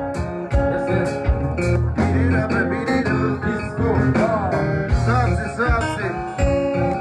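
Live kompa band music with keyboards, guitar, bass and a steady drum beat. A voice sings over it in the middle.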